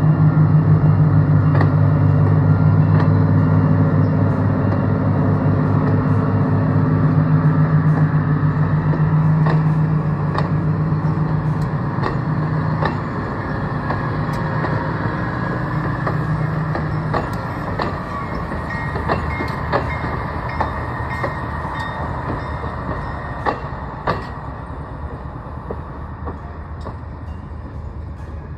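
Budd RDC diesel railcar train passing close by: the underfloor diesel engines drone steadily and loudly for about the first dozen seconds, then fade as the cars roll away, with sharp wheel clicks over the rail joints throughout.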